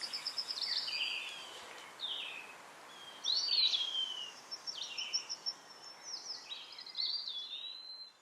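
Songbirds singing in short phrases, a few seconds apart, of slurred whistles and quick trills, over a faint steady hiss of outdoor background noise. The sound drops away abruptly near the end.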